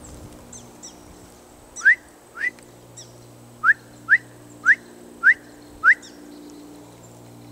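Seven short, sharp whistles, each sliding upward in pitch, loud and close. Two come about two seconds in, then a pause, then five more at roughly half-second to second intervals.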